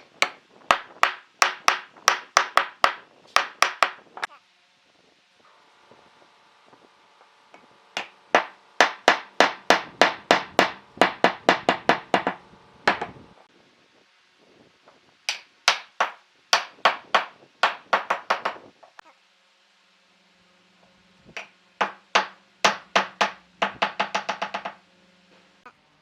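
Hammer blows struck in quick series during hand woodworking: four runs of a few seconds each, about three to four strikes a second, with a faint ringing tone under some of the runs.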